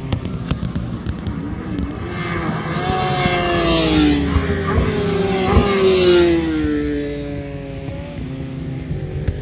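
Sport motorcycle engine revving high as the bike runs down the end of the straight and past. Its pitch glides down several times, loudest about halfway through, then fades.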